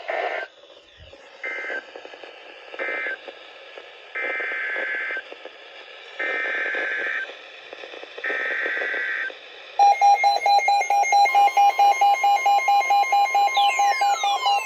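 Emergency Alert System data bursts heard through a radio with background hiss: three short end-of-message bursts, then three longer header bursts about two seconds apart for the next warning. About ten seconds in, a loud, rapidly pulsing alert tone begins, and near the end tones falling in pitch sweep over it.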